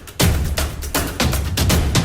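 Background music with a steady, fast percussive beat, about four strikes a second, over a low bass.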